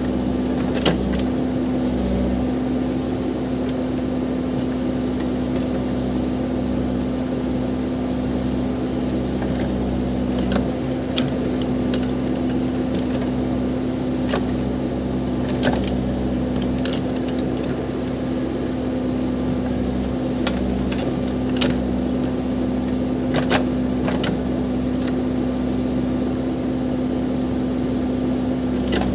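Diesel engine of a Case 580 Super M backhoe loader running steadily under work, with a few short, sharp knocks scattered through.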